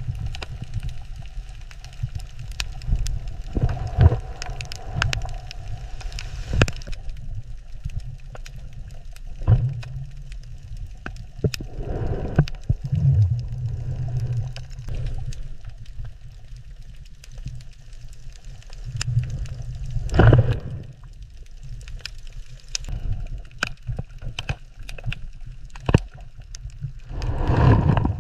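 Underwater ambience: a steady low rumble with scattered sharp clicks and crackles, swelling now and then into louder surges of water.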